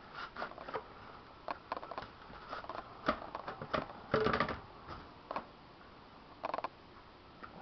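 Hands squeezing and rolling sticky bread dough into balls, making irregular soft squishes and taps.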